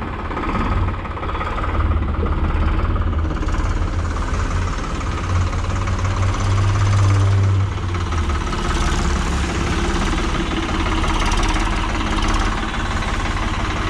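VST Shakti 9054 DI tractor's diesel engine running as the tractor drives up and turns in close by, loudest about six to seven and a half seconds in.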